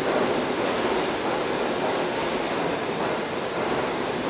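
New York City subway G train car running into a station platform, heard from inside the car: a steady, even noise of wheels on track and running gear, with no brake squeal or distinct clatter.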